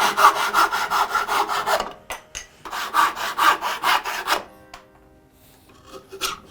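Hand saw cutting wood in quick, even strokes, about six a second, in two runs of about two seconds each with a short pause between. A few light knocks follow near the end.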